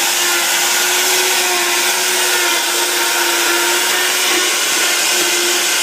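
Electric blender motor running steadily at full speed, blending fruit into a yellow puree, with one held whine over a loud even rush.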